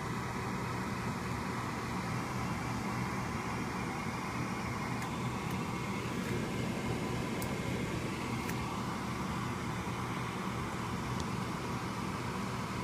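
Steady mechanical hum, fan-like, with a few faint high ticks about halfway through.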